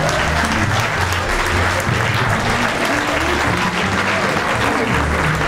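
Audience applauding, with music playing under the clapping.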